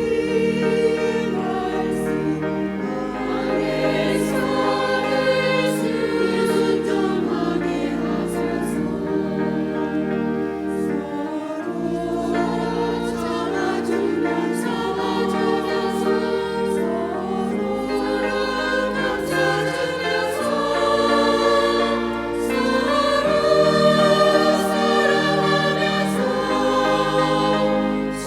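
Church choir singing a hymn, with sustained low bass notes under the voices that change every couple of seconds.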